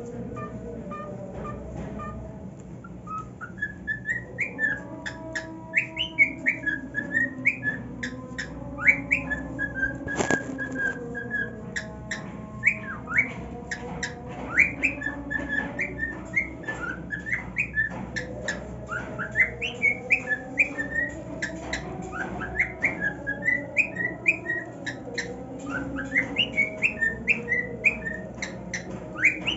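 Male cockatiel singing: a long run of quick rising and falling whistles and chirps that starts a few seconds in, with scattered sharp clicks among them.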